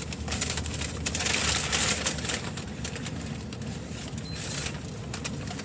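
Continuous crackling rustle with many small clicks, as of paper or plastic food packaging being handled and searched through, over a steady low hum.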